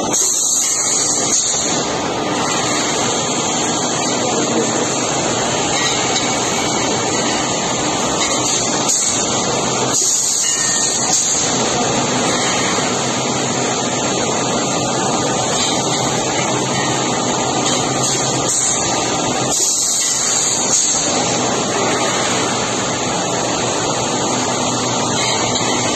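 Steady, loud industrial machinery noise, an even hiss-like din from a running roll-forming and servo-driven stacking line.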